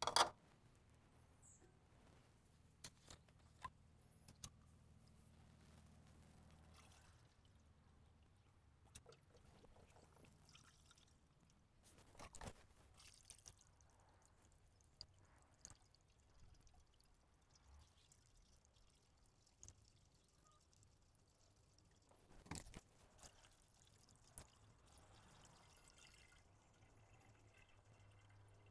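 Faint sound of distilled water being poured from a plastic gallon jug through a funnel into a tractor's radiator. Scattered handling clicks and knocks punctuate it, and a sharp knock right at the start is the loudest.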